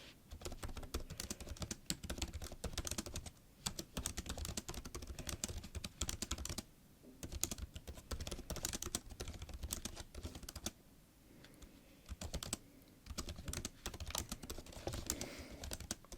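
Typing on a laptop keyboard: runs of quick key taps, broken by several short pauses.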